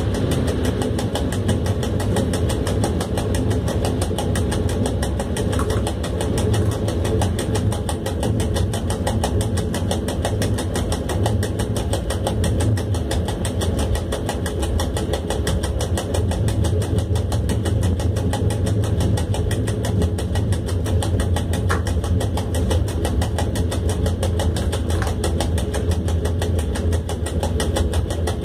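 Steady running noise inside the cab of an ET22 electric freight locomotive under way: a continuous low drone of the machinery and wheels on the rails.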